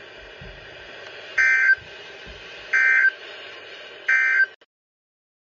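Three short bursts of EAS SAME digital data tones, about a second and a half apart, over a steady hiss of radio static. This is the end-of-message code that closes a weather radio alert.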